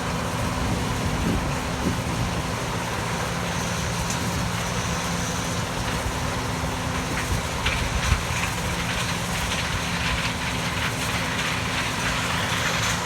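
Combine harvester running steadily at working speed during corn harvest, its engine and threshing machinery making a constant drone, with light rattling in the second half.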